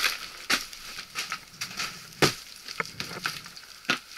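Boots stepping over a litter of old boards, plastic sheeting and dry leaves, making irregular crunches and cracks about every half second, the loudest a little past the middle.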